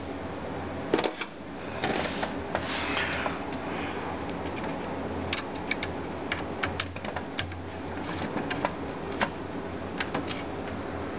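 Irregular light clicks and taps of small hard computer parts and tools being handled, with a scraping sound about two to three seconds in, over a steady low hum.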